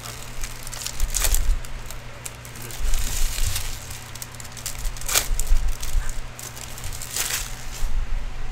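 Foil trading-card pack wrappers crinkling and hockey cards being handled, in four short crackly rustles about two seconds apart, with dull low bumps against the table.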